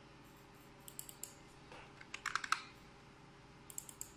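Computer keyboard typing in short bursts: a few keystrokes about a second in, a quick run of about six near the middle, and a couple more near the end.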